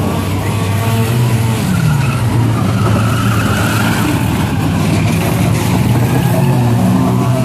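Banger-racing stock car engines running and revving together, with tyres skidding on the track.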